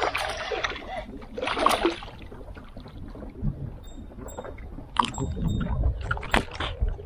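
A hooked peacock bass thrashing and splashing at the water's surface beside a kayak, twice in the first two seconds, then a few sharp knocks as the fish is lifted from the water and swung aboard.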